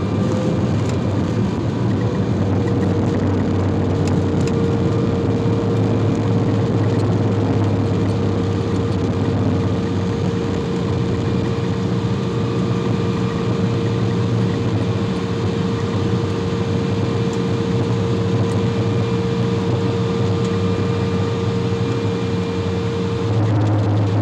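Cabin noise of an Embraer E175 on the ground after landing: the steady drone of its General Electric CF34 turbofans at low power, with a held whine over a low rumble. About a second before the end the whine drops to a lower pitch and the rumble grows louder.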